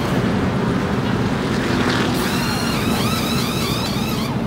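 NASCAR Cup stock cars' V8 engines running at racing speed as a dense, steady rumble. From about halfway in, engine notes climb in pitch in several quick, overlapping sweeps as cars accelerate.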